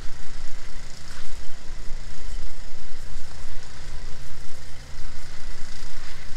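An engine running steadily at idle, an even low hum.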